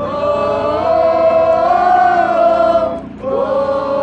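A group of voices singing a Spanish worship song together, holding one long sung phrase, with a short break about three seconds in before the next phrase begins.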